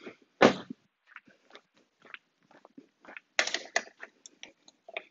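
Scattered short clicks and rattles from hands working a plastic Thule Evo Clamp roof-rack foot on the car's roof, with one sharp thump about half a second in and a denser run of clicks a little over three seconds in.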